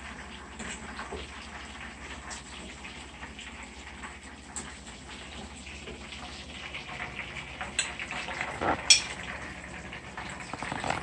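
Hot oil sizzling steadily in a frying pan as fried fish are lifted out, with light clinks of a fork and plate and one sharp clink near the end.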